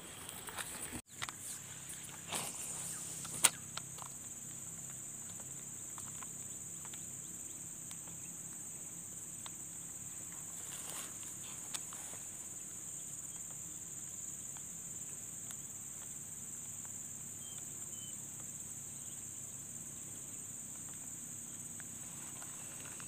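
Steady high-pitched chorus of insects buzzing without a break, with a single sharp click about three and a half seconds in.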